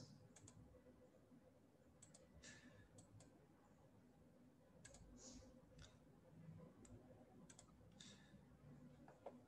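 Near silence: room tone with scattered faint computer-mouse clicks, some in quick pairs.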